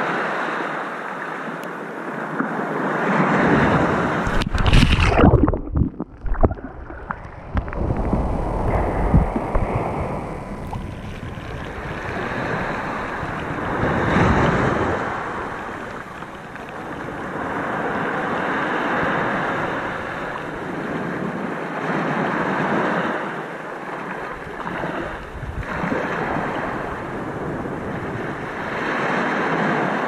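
Ocean waves washing in and breaking, the surf swelling and falling back every four or five seconds, with the heaviest wave about four to six seconds in.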